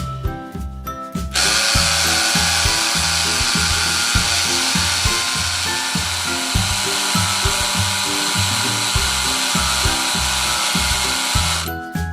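Toy blender from a kitchen playset running: a loud, steady motor noise that starts a little over a second in and stops just before the end. Background music with a steady beat plays under it.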